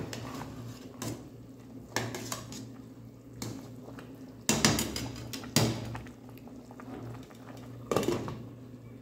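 A metal ladle scrapes and clanks against the side of a large aluminium stockpot of soup in a series of separate knocks, loudest about halfway through. Near the end a glass pot lid is set on with a clink.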